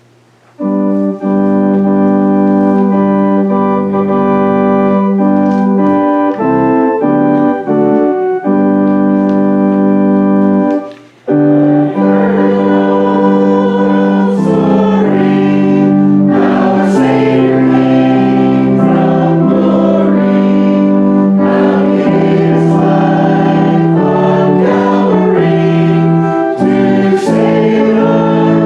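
An organ plays a hymn introduction in steady held chords, stops briefly, then a congregation starts singing the hymn with the organ accompanying.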